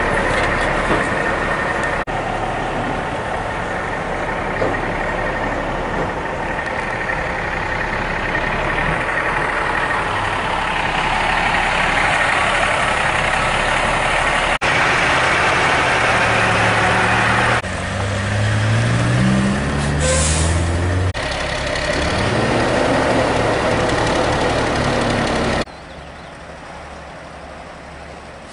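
Heavy diesel trucks running on a mountain road, in several short takes. In one take an engine's pitch rises several times in steps as it pulls away, with a short hiss about two-thirds through; the last few seconds are much quieter.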